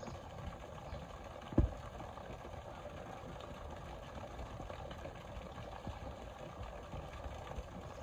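Steady splashing of a waterfall's stream pouring into a pond, with a Syrian brown bear moving in the water. One sharp, loud low thump about one and a half seconds in.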